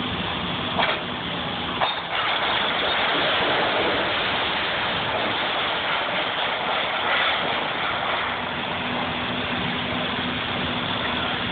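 A timber-framed building with sheet-metal siding coming down under an excavator: a couple of sharp knocks, then, about two seconds in, a long noisy rush of falling timber and sheet metal that eases off after several seconds, over a steady engine hum.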